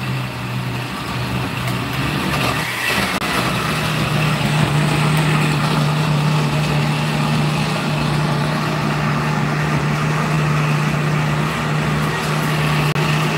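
Countertop electric blender running steadily, blending a thick mixture of ginger, garlic and spices. About three seconds in the motor's pitch changes, then holds steady.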